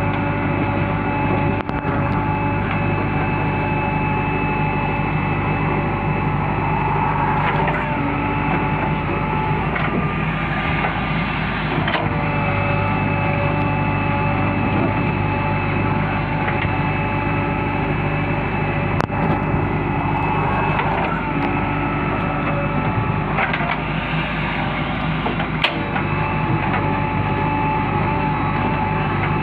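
Backhoe loader's diesel engine running steadily while working, its note changing a few times as the load comes and goes, with a couple of sharp knocks.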